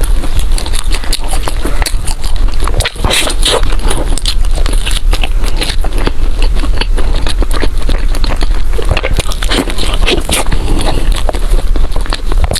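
Loud close-miked chewing of food, a dense, unbroken run of wet clicks and crunches.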